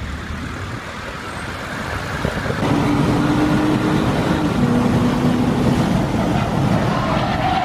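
Sports car engine and road noise heard from inside the cabin while driving on a highway. The engine holds a steady note that drops a step in pitch about halfway through.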